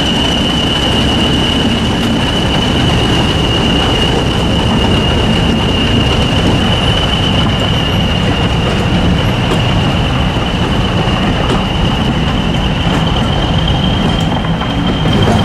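English Electric Class 40 diesel locomotive D335 running past with a train of coaches: a dense, steady rumble from the engine and wheels, under one steady high whistle typical of a Class 40's turbochargers.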